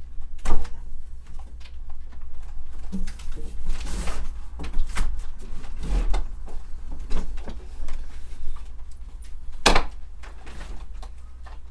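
Window air conditioner being worked out of a window frame: irregular clunks, knocks and scraping of the unit's casing against the sill and sash, with one sharp knock about ten seconds in.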